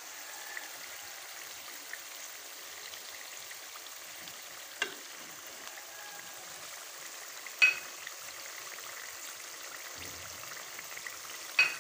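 Chicken, onion and capsicum frying in a pan with a steady low sizzle. Three short sharp knocks come about two, three and four-fifths of the way through, the middle one loudest.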